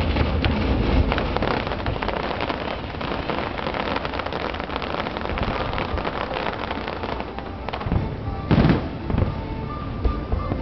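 Aerial fireworks display: dense crackling from bursting star shells over a low rumble of shell bursts, with one louder bang about eight and a half seconds in.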